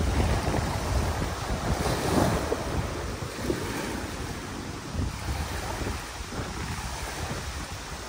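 Small wind-driven lake waves washing and breaking onto a sandy beach, with gusty wind buffeting the microphone.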